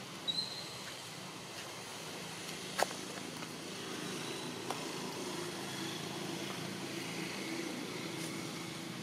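Outdoor background with a low steady hum that grows louder about four seconds in. A brief high squeak comes near the start, and a single sharp click a little before three seconds.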